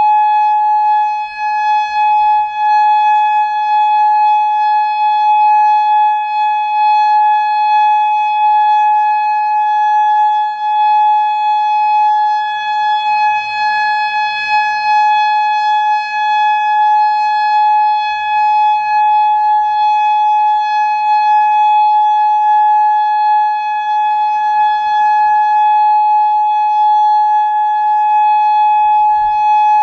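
Federal Signal Modulator 3012 electronic outdoor warning siren sounding a steady tone during a test, held at one unchanging pitch.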